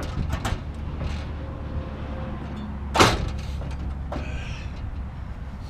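A single sharp, loud knock about three seconds in, with a few small clicks and knocks, over a steady low hum.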